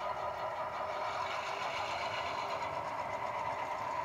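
Model railroad diesel locomotive's sound decoder playing a steady diesel engine sound as the locomotive switches cars in the yard, heard through a small speaker with little bass.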